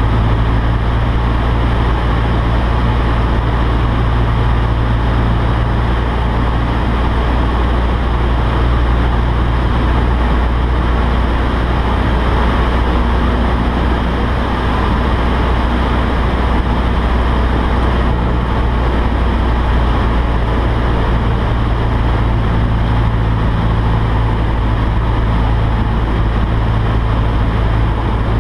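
Cessna 152's four-cylinder Lycoming engine and propeller droning steadily in flight, heard from inside the cockpit cabin.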